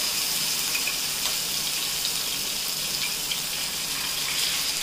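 Marinated chicken sizzling in hot mustard oil in a kadai: a steady hiss with small scattered crackles as the marinade's moisture boils off in the oil.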